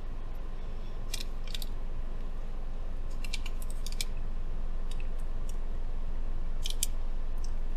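Steady low rumble of a moving car heard from inside the cabin, with a few light clicks and taps from eating out of a bento box, the sharpest near the middle and near the end.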